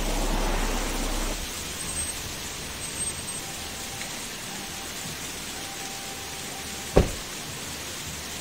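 Waterfall: a steady rush of falling water, with a single sharp click about seven seconds in.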